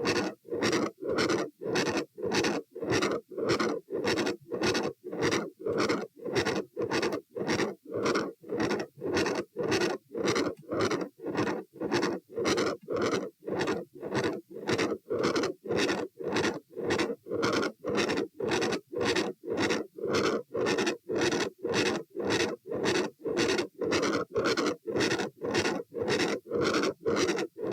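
Heart sounds at the aortic area of the chest, a rhythmic pulsing about twice a second carrying a continuous machinery murmur. The recorder's possible causes include an aortic window, coarctation of the aorta, a fistula, a rupture or a PDA.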